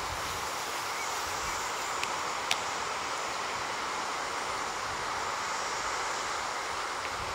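Steady, distant rushing roar of an ATR 72-600 turboprop airliner's engines as it rolls along the runway after landing. Two short clicks sound about two seconds in, the second sharper.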